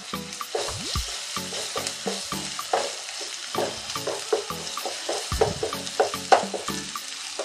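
Chopped onions and ginger-garlic paste sizzling in hot oil, stirred with a spatula that scrapes and knocks against the pan in quick, irregular strokes over a steady frying hiss.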